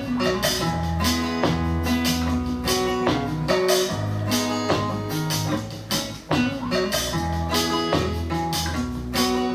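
Guitar-led music with bass and a steady drum beat, played through an AUKEY SoundTank Bluetooth speaker.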